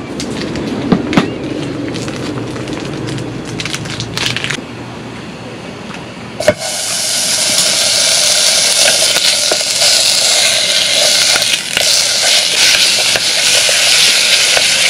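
Food frying in a hot pan: after a few knocks and clicks, a sharp click about six and a half seconds in is followed by a sudden loud, steady sizzle, as ingredients are stir-fried.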